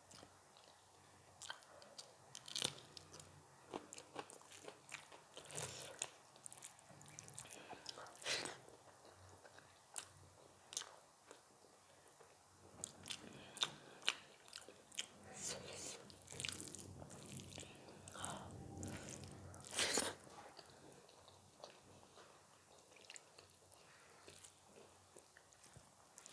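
A person biting and chewing crunchy food close to the microphone, with irregular crunches throughout and a few louder ones near the middle and about three quarters of the way through.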